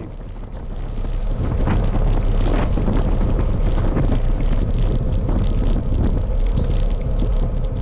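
Wind rumbling over the microphone of a camera mounted on a moving road bike, louder from about a second in.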